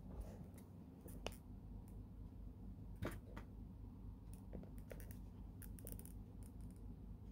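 Faint handling noise: scattered small clicks and light scrapes, a few close together around the middle, over a low steady hum.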